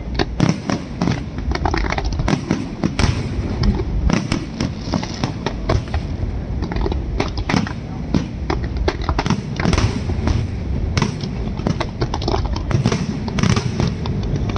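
Fireworks and firecrackers going off in a dense, irregular barrage, several sharp bangs a second without a break, over a constant low rumble.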